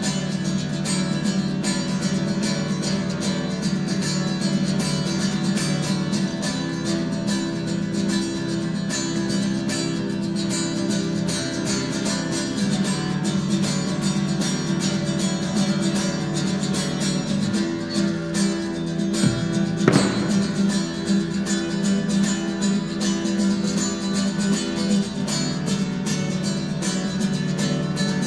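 Nylon-string classical guitar played live with fast, continuous strumming. A single thump cuts through the playing about two-thirds of the way through.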